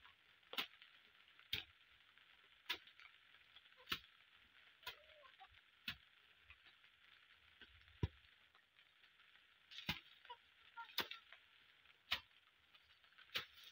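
Jembe (hand hoe) striking into soil while weeding, one sharp chop about every second, over a steady high hiss.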